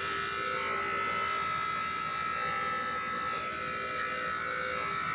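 Electric pet grooming clippers running steadily, with a constant high tone, while working on an English bulldog's front leg.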